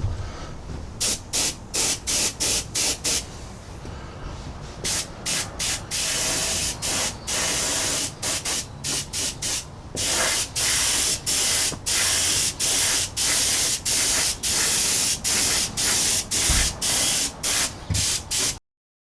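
Airbrush spraying DuraCoat onto a shotgun receiver in repeated bursts of hiss: short bursts, then longer passes around the middle, then a quick run of about two bursts a second. It cuts off suddenly near the end.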